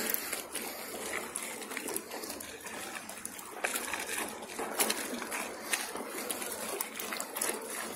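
Small sea waves lapping and sloshing against a rocky shore, with scattered sharp clicks through it.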